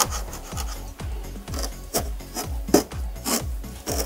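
Rasping, rubbing and tearing noises of a fibrous spray-booth filter having its dusty surface layer peeled off by hand. Background music with a steady beat plays underneath.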